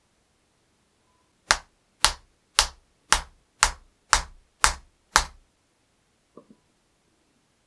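A plastic-faced hammer strikes the end of a wooden chisel handle eight times, about two blows a second, driving the handle onto the chisel's tang.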